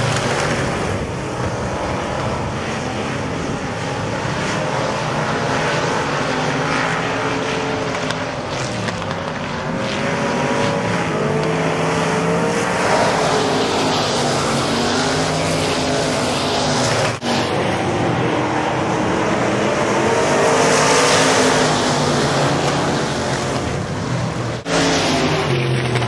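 A pack of dirt-track modified race cars running at speed around a dirt oval, several engines overlapping and rising and falling in pitch as the cars pass. The sound drops out for an instant twice, near the middle and near the end.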